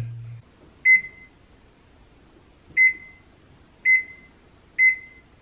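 Samsung oven control panel beeping as its keypad buttons are pressed to enter a bake temperature of 460 degrees: four short, single-pitched beeps, unevenly spaced about a second apart.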